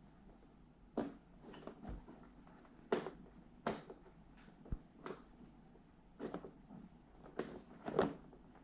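Packaging handled by hand while tape is worked off a box: a string of separate sharp clicks and taps, about one a second, with faint rustling between them.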